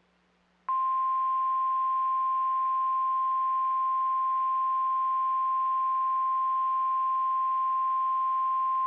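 NOAA Weather Radio's 1050 Hz warning alarm tone: one loud, steady, unwavering pitch that switches on abruptly about a second in and holds. It signals that a warning message follows, here a flash flood warning. A faint low hum sits under it.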